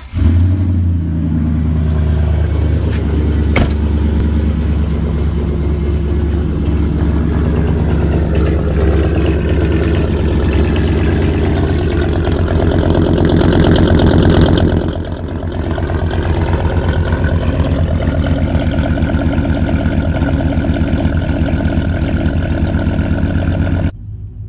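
Chevy Silverado's 5.3-litre V8 catching on start-up, then idling steadily. It grows louder between about twelve and fourteen seconds in, then drops back at about fifteen seconds.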